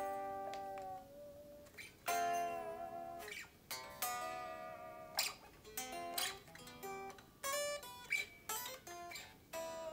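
Donner DST-400 electric guitar played clean: chords and single notes struck every second or two, each left to ring and fade.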